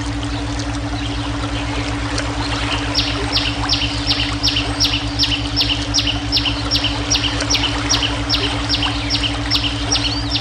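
Running water with a steady low brainwave hum underneath. From about three seconds in, a bird gives a long series of short, high, evenly spaced notes, about four a second, stopping near the end.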